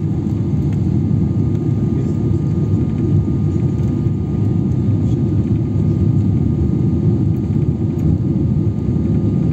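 Steady cabin noise inside a Boeing 777-300ER on final approach, a deep even rumble of its GE90 engines and the airflow, with a faint steady high whine above it.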